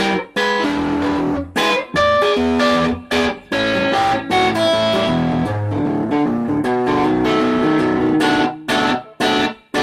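Peavey JF-1 semi-hollow electric guitar played fingerstyle on its neck pickup through a Peavey Classic 20MH tube amp, clean channel cranked in 1-watt mode, into a 1x12 cabinet with a Vintage 30 speaker, giving a gritty, lightly overdriven tone. A run of picked notes and chords, with several sharp stops where the strings are muted.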